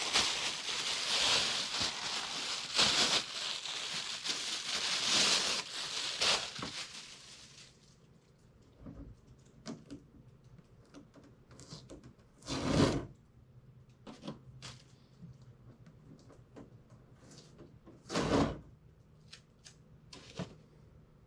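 Packaging being unwrapped: dense plastic rustling and crinkling for the first several seconds. Then quieter handling of the plastic dehumidifier, with scattered clicks and two loud knocks.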